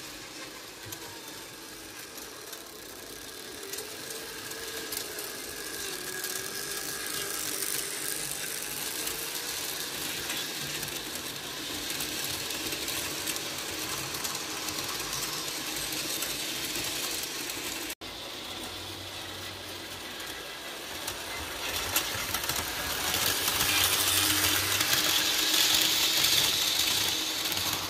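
Märklin HO model train running on its track: the F7 diesel locomotives' motor and gears whirring along with the wheels of the freight cars on the rails. It grows louder near the end as the cars pass close by.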